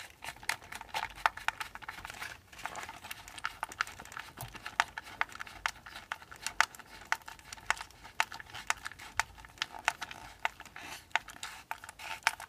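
Small precision screwdriver turning screws into an RC truck's plastic chassis: a run of quick, irregular clicks and scratchy rubbing, with a brief pause about two seconds in.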